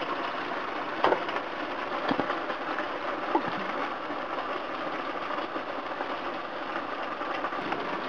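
Ground beef, onion and mushroom mixture sizzling steadily in a hot pan as thick bottled spaghetti sauce is poured over it. A few light knocks come about one, two and three and a half seconds in.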